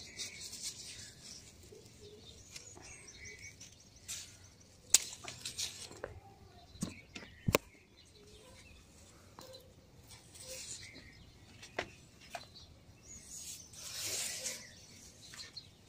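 Garden scissors snipping through brinjal (eggplant) stalks, a few sharp snips several seconds apart, with the leaves rustling as the plant is handled. There is a louder rustle near the end.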